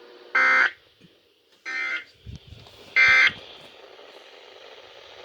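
Three short bursts of Emergency Alert System digital data tones (SAME header bursts), about 1.3 seconds apart. Their shortness fits the end-of-message code that closes a broadcast alert.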